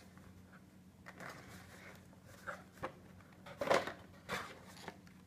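Small cardboard product box being handled and opened by hand: a few light taps and sliding scrapes of card, the loudest about three and a half seconds in.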